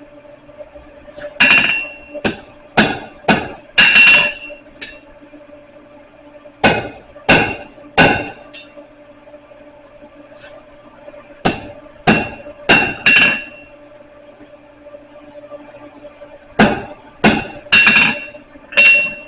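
Hand hammer striking the heated end of a piece of rebar on an anvil to upset it, in bursts of three to five blows about two a second with pauses of a few seconds between, each blow ringing briefly. A faint steady hum runs underneath.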